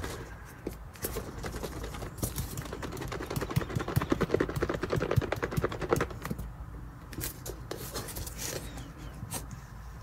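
Small plastic food container with a little water and dish soap being shaken hard to whip up bubbles: a quick, continuous rattling clatter, thinning out in the last few seconds.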